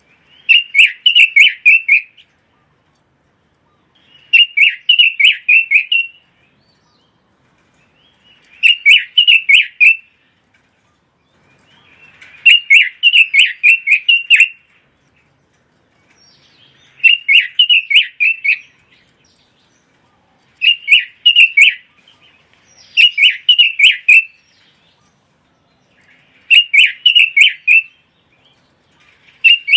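Pekin robin (red-billed leiothrix) singing: fast, warbled phrases of about two seconds each, repeated every few seconds with short pauses between, nine times over.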